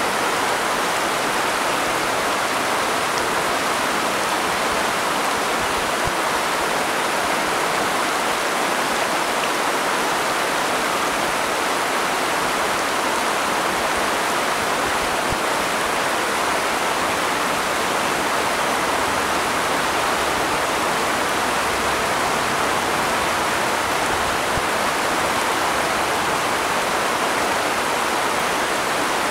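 Flowing water rushing steadily and evenly, unbroken throughout.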